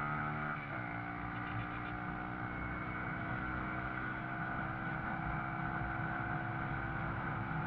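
Small motorcycle engine running while riding: the revs drop just under a second in as the throttle eases, then hold at a steady, even pitch.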